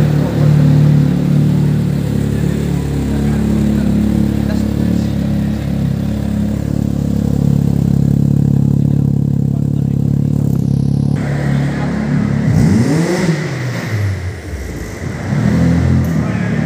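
Quad's engine running with a steady drone, then revved up and back down twice in the last few seconds.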